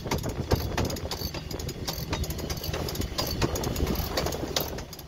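Cruising boat's engine running under way with a steady low hum, overlaid by frequent irregular clicks and knocks.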